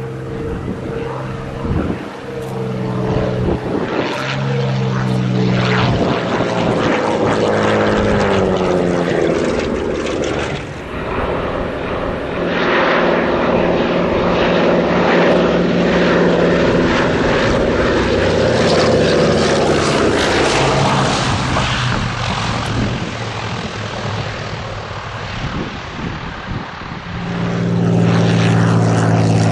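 Piston-engined warbirds passing low as they land. A Spitfire's Rolls-Royce Merlin drones and drops in pitch as it goes by. From about twelve seconds in, a Douglas Dakota's twin radial engines pass, and near the end another Spitfire's Merlin comes in loudly.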